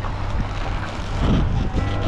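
Wind buffeting the microphone outdoors, a steady low rumble.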